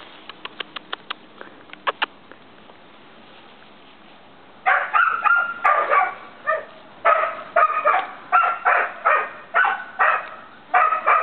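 Puppy barking over and over in short high yaps, about two a second, starting about four and a half seconds in. Before that, a quick run of light clicks.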